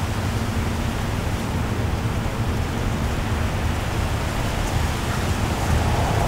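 A steady rushing noise with a low rumble underneath, starting abruptly and growing a little louder near the end.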